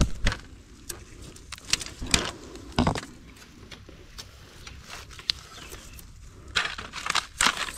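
Dry, fire-scorched bamboo stalks and leaves rustling and crackling as a hand pushes in among them, with scattered sharp snaps and cracks. The cracking is densest about two thirds of the way in.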